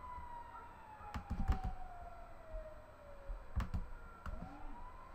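Sharp clicks of someone working a computer: a quick cluster about a second in, then a couple more past three and a half seconds. Under them a faint wailing tone slides slowly down in pitch, then begins to rise again near the end, like a distant siren.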